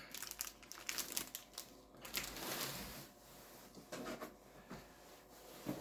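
Plastic food packaging crinkling and rustling in the hands as groceries are handled and set down, with a few light knocks.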